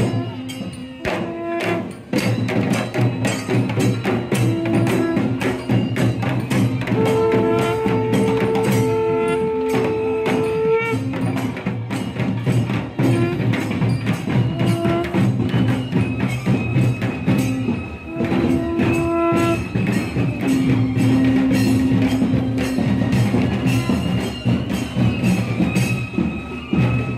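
Temple procession music: drums beaten in a fast, dense rhythm, with long, steady blasts on a curved horn. The longest blast, about four seconds, comes midway, and shorter blasts on other pitches come near the start and in the second half.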